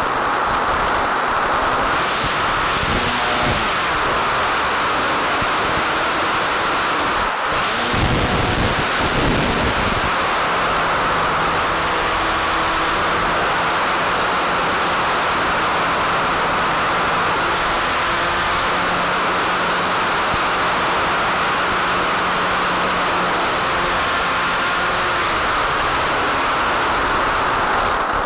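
Steady rushing noise of airflow and motor picked up in flight by an electric model plane's onboard FPV audio, with a brief low rumble about eight seconds in.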